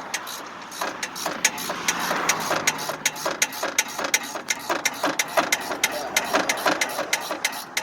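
Rapid, irregular clicking from hand-tool work on a car's axle, several sharp clicks a second, with a faint engine hum partway through.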